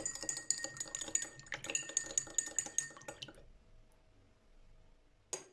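Spoon stirring briskly in a glass of water, with quick, rapid clinks against the glass that stop about three and a half seconds in. A single short click comes near the end.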